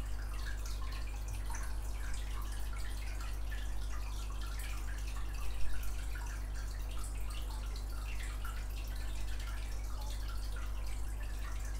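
A steady low hum with faint scattered small ticks and clicks, and one slightly louder bump a little past halfway.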